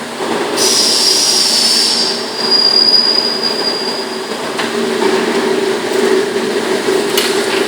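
Sheet-metal duct production line running: a steady machine hum, with a high metallic squeal and hiss for about three seconds, then a couple of sharp clicks.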